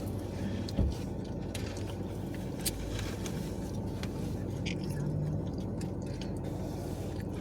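Someone chewing pizza close to the microphone, with small wet mouth clicks over a steady low background hum. A single sharp thump comes just under a second in.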